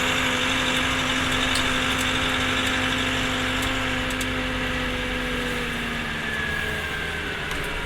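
Orion V transit bus's engine and drivetrain running, with a steady hum and whine that hold level and then fade out in the second half as the bus eases off.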